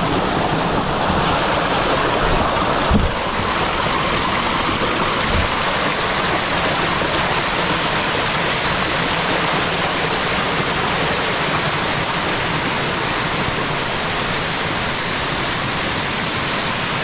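Creek water gushing and splashing out of the outlet of a large pipe into the streambed: a steady, loud rush of water, with one brief thump about three seconds in.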